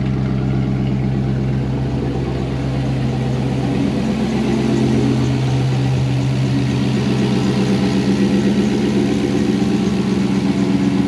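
5.3-litre Vortec V8 idling steadily through a straight-piped exhaust, with an even, low pulsing beat.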